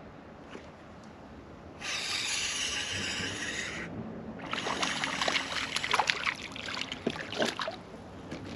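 A small hooked crappie splashing and thrashing at the water's surface as it is reeled up and lifted out, with a run of quick splashes and drips, after a steady hiss of about two seconds.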